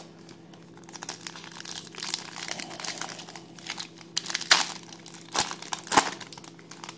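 Wrapper of a baseball card pack crinkling and tearing as the pack is opened, with a few sharp, loud crackles in the second half.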